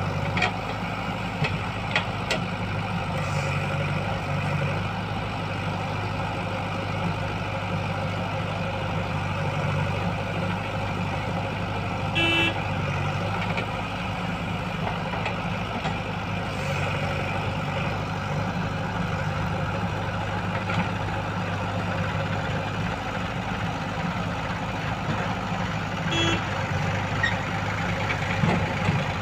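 JCB 3DX backhoe loader's diesel engine running steadily under load while it works its backhoe arm, with a few short knocks about 12 and 26 seconds in.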